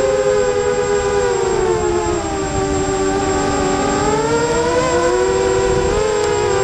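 FPV quadcopter's electric motors and propellers whining, several close pitches that dip lower a couple of seconds in and rise again near the end as the throttle changes, over a rush of air.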